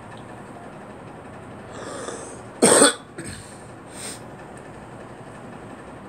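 A woman coughing: a short breath, then one loud cough a little past halfway, followed by two weaker coughs.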